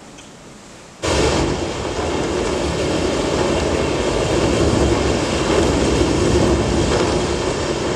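Quiet hall, then about a second in a steady, rumbling noise starts abruptly and holds: a sound effect played over the hall's loudspeakers as the opening of a dance soundtrack.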